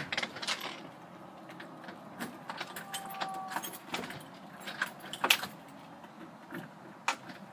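A bunch of keys jangling in scattered light clicks and jingles while being carried to a parked car, with a brief steady tone about three seconds in.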